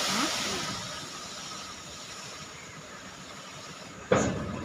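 Manufactured sand (M-sand) pouring out of a raised tipper truck body: a steady rushing hiss that slowly fades. About four seconds in, a single sudden loud thump.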